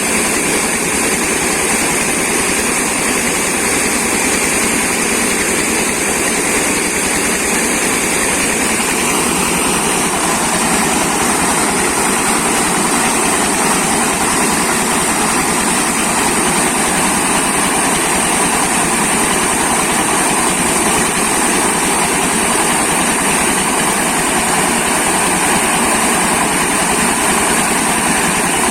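Corn grinding mill running steadily and loudly, a dense mechanical noise with a high steady whine; its sound changes slightly about nine seconds in.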